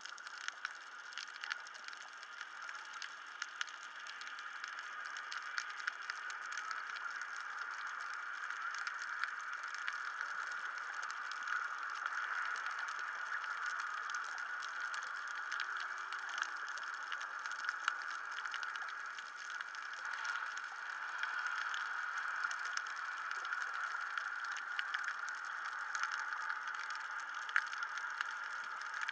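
Underwater reef crackle: a dense, steady patter of tiny clicks typical of snapping shrimp on a coral reef, over a steady mid-pitched hum.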